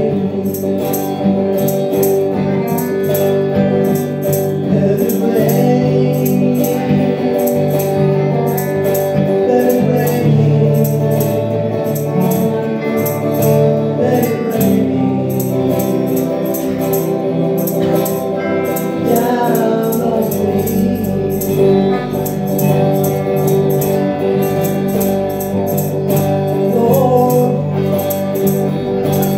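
Live gospel music: a woman singing lead over electric guitar and keyboard, with a steady high jingling beat like a tambourine.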